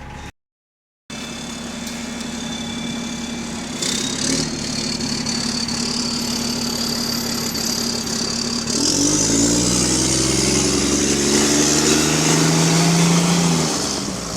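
Diesel engine of a double-deck bus that has an exhaust leak, heard on board, running steadily and then pulling hard and rising in pitch from about nine seconds in, with a whine climbing slowly alongside. The engine note falls away just before the end. The sound cuts out briefly near the start.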